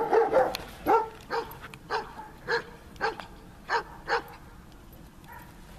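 Protection dog barking in a steady series of about ten short barks, roughly two a second, that stop a little after four seconds in.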